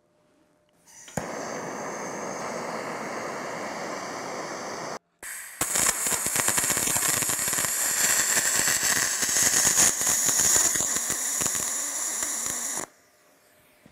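MIG welding arc on aluminum, crackling. It runs in two stretches: a steadier stretch starting about a second in and lasting about four seconds, then, after a short break, a louder stretch of about seven seconds that stops abruptly.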